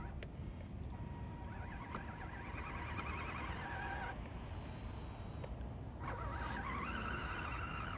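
Electric motor and geartrain of a radio-controlled Axial SCX10 crawler whining as the truck pushes snow with its plow blade, the whine wavering up and down in pitch in two stretches of a second or two, over a steady low rumble.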